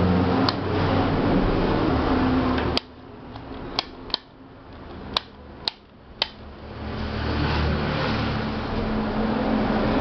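Tower fan's small electric motor humming steadily, cut off sharply with a click about three seconds in. A handful of sharp switch clicks follow, then the hum comes back, building up to steady again about seven seconds in.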